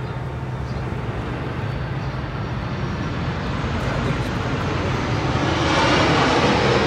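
A passing vehicle: its noise grows steadily louder to a peak near the end, then begins to fade, over a steady low hum.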